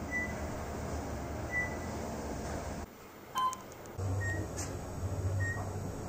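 Otis elevator floor-passing beeps: a short high beep about every second and a half as the car travels, over the low hum of the moving car. About halfway through, a single brief chime rings, and then the short beeps carry on at a slightly lower pitch.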